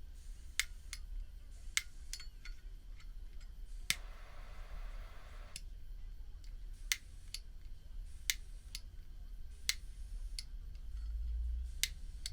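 Zippo single-torch butane insert's ignition button clicking over and over, sharp single clicks at uneven intervals. About four seconds in, a short hiss of gas lasting about a second and a half. The lighter won't light consistently after being dropped.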